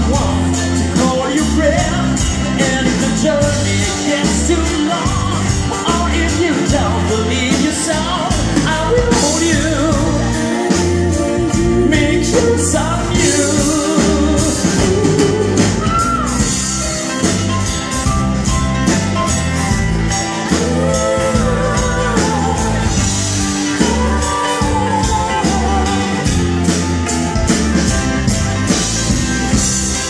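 Live americana rock band playing with a steady beat: acoustic guitar, mandolin, electric guitar and drum kit, with singing.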